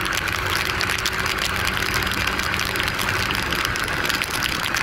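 A 150cc single-cylinder Yamaha motorcycle running at a steady cruising speed on a rain-soaked road, its low engine hum under a loud, even rush of wind and wet-road spray.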